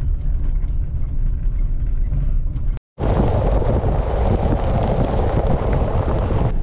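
Car driving, a steady low road rumble. About three seconds in it breaks off for an instant and a louder, harsher steady noise follows.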